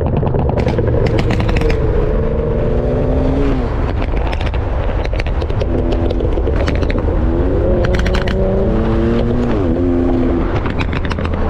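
A car engine revving repeatedly, its pitch climbing and dropping several times, over a steady low engine rumble with scattered sharp crackles.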